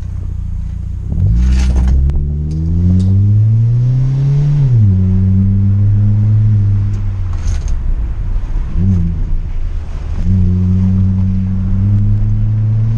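Hyundai HB20 1.6 four-cylinder engine running through a sport exhaust with an added muffler, which gives it a mild, deeper tone. The revs climb for about three seconds, drop sharply, hold steady, then rise and hold again near the end.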